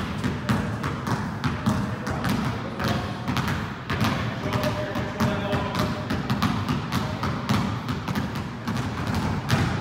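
A basketball is being dribbled repeatedly on a hard indoor court, giving a steady run of quick bounces.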